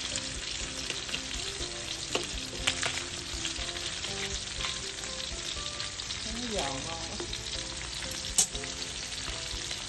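Salted fish frying in hot oil in a pan, with a steady sizzle full of small crackles and one sharper spit of oil near the end.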